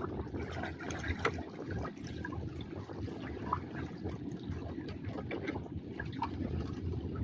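Seawater lapping and sloshing in a steady wash, with scattered small drips and splashes.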